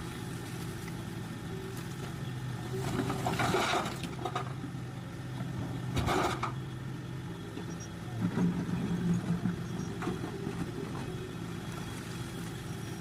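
Heavy mining machine's diesel engine running steadily, with short bursts of rough noise about three and six seconds in and the engine growing louder around eight seconds.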